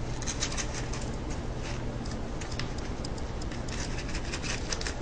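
Plastic sandwich bag crinkling in irregular clusters as it is handled and its filled end is twisted shut, over a steady low hum.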